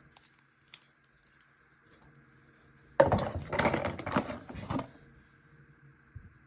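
Small nail polish bottles clicking and rattling against each other for about two seconds as they are handled, starting abruptly about three seconds in.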